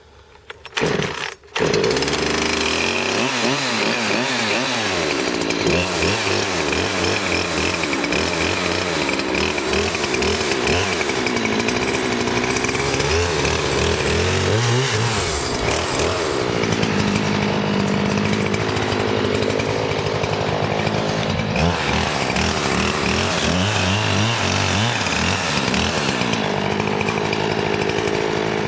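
Gasoline chainsaw cold-started: two short bursts near the start, then it catches about two seconds in and runs steadily to the end, its engine speed wavering up and down.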